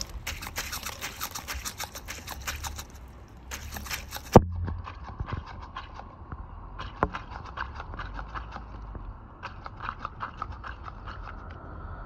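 A herring gull's bill pecking and snapping at dried mealworms in a plastic pot: a quick, irregular run of clicks and taps, with one sharp knock about four seconds in.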